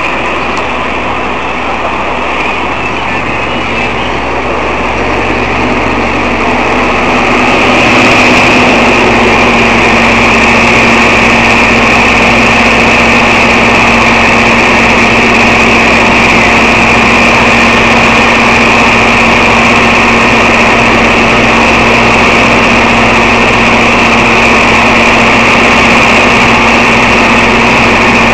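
Loud, steady mechanical drone with a constant hum, getting louder about eight seconds in.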